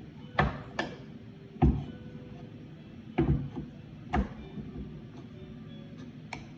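Sharp knocks on wood at uneven intervals, about five of them in the first four seconds and a light one near the end, from the wooden parts of a birdhouse kit being worked on.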